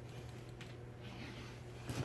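Light clicks and taps of ceiling fan hardware being handled during assembly, with one sharper click near the end, over a steady low hum.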